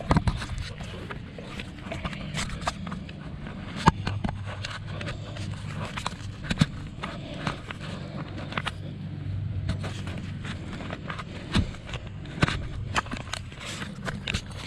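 Irregular knocks, scrapes and rubbing from a camera strapped to a pit bull as the dog moves about, over a steady low hum.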